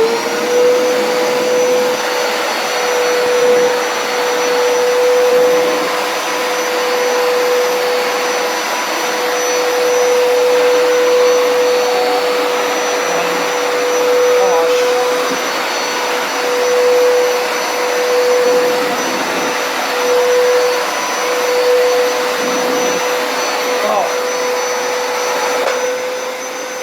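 Hoover Power Scrub Deluxe upright carpet cleaner running: its motor spins up at the start to a steady whine over a loud rush of suction air as it washes a stained carpet with detergent, and starts to wind down in pitch at the very end.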